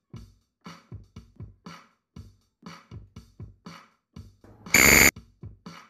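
Quiz countdown music: a quick, ticking drum-machine beat of about four pulses a second. Near the end a loud electronic buzzer sounds for about half a second as the countdown timer runs out.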